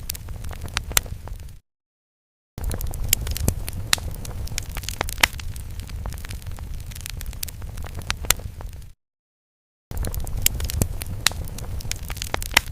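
Crackling fire sound effect: a steady low rumble with frequent sharp crackles and pops. It cuts out to dead silence twice for about a second, once under two seconds in and again about nine seconds in.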